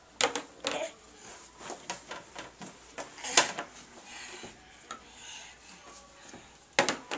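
Plastic toy kitchen being handled: a string of light clicks and knocks from small plastic cups set down on its stovetop and its plastic cabinet door being opened, the loudest knock about three and a half seconds in and a quick double knock near the end.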